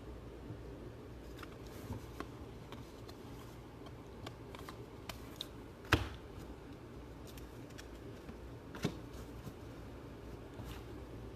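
Faint handling of trading cards: scattered soft clicks and rustles as cards are flipped through, with a sharper tap about six seconds in and another near nine seconds, over a low steady hum.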